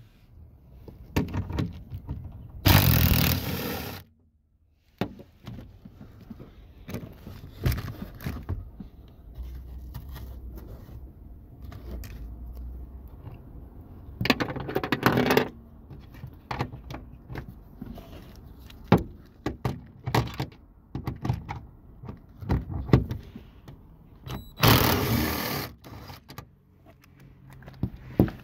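Cordless drill-driver with a 10 mm socket on an extension spinning in three short runs, about three seconds in, midway and near the end, backing out the three bolts that hold a car's rear speaker. Light clicks and rattles of the socket and loose hardware come in between.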